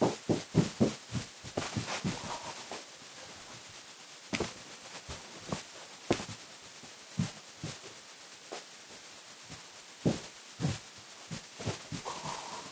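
Irregular thumps and knocks from someone moving about close to the webcam microphone, with a quick cluster in the first two seconds and more scattered ones later.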